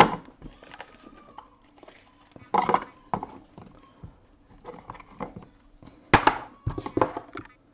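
Hands handling a cardboard card box and a stack of trading cards: scattered clicks, scrapes and rustles, with a cluster of louder clatters near the end as the stack is set down on a hard case.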